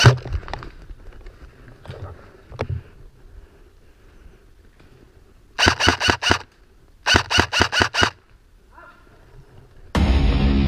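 Airsoft rifle firing two quick strings of shots, five or six each, about a second apart. A single knock comes right at the start, and loud heavy rock music comes in near the end.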